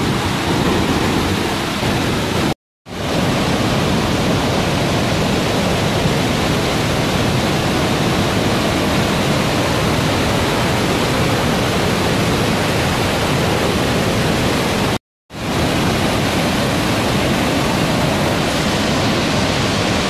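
Iguazu Falls' Devil's Throat pouring: a loud, steady rush of falling water, cut out twice by split-second dropouts, about two and a half seconds in and about fifteen seconds in.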